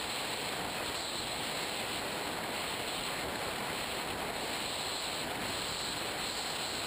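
Steady rushing wind noise over the camera of an FPV RC plane in flight, with no distinct tones or sudden sounds.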